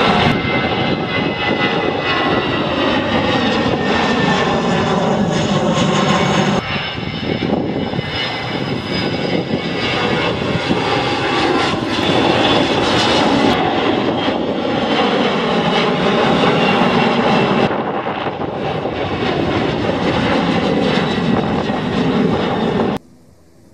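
Jet airliners passing low overhead one after another, an Airbus A320-family twinjet, a four-engined BAe 146 and a Boeing 737, their engine noise spliced together with abrupt changes every few seconds. Each carries whining tones that slide down in pitch as the aircraft goes past; the noise cuts off sharply near the end.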